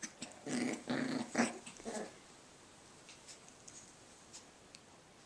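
Cavachon puppy play-growling in about four short bursts over the first two seconds, then faint scuffling.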